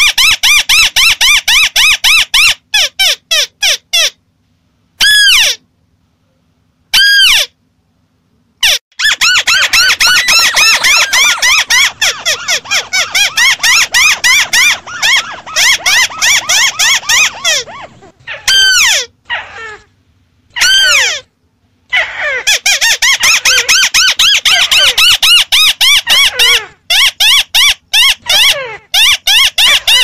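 White-browed crakes calling: fast chattering runs of short notes, each rising and falling in pitch, several birds overlapping in a dense chorus. The runs are broken by abrupt silences, with a few lone notes in the first quarter. It is an edited lure-call recording (suara pikat) for drawing in crakes.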